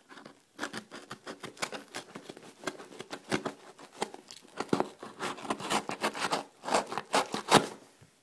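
A blunt knife sawing and scraping through the packing tape and cardboard of a parcel, in a quick run of short rasps that get louder near the end.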